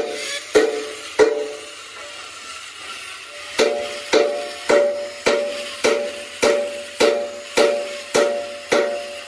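Hammer blows on metal, each with a short ring: three quick strikes, a pause, then a steady run of about ten strikes a little over half a second apart.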